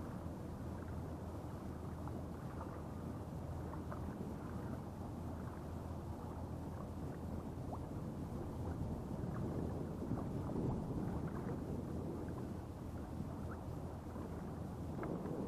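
Water lapping against a kayak's hull as it moves over calm sea, a steady wash dotted with small splashes that grow a little busier near the end.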